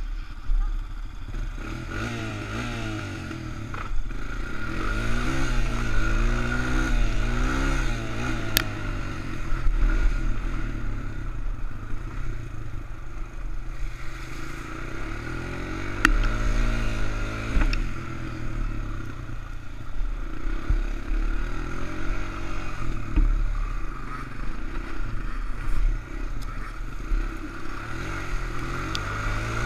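ATV engine running and revving up and down over and over as the throttle opens and closes, with a few sharp knocks and clatter from the machine bouncing over rough ground.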